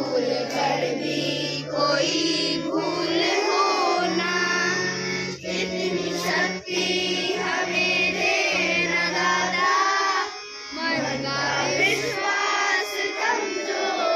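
Children singing together as a group over instrumental accompaniment with held low notes.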